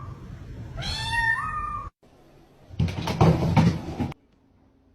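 A cat gives a long, drawn-out meow that jumps up in pitch partway through. About a second later comes a harsh, noisy sound lasting a little over a second.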